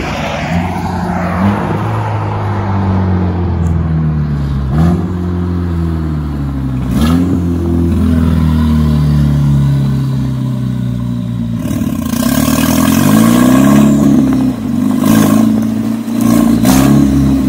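Volkswagen GTI's 2.0-litre turbocharged four-cylinder running through a straight-pipe exhaust made of PVC pipe: very loud, its pitch climbing and dropping back several times as the car accelerates through the gears. It is loudest in the last few seconds.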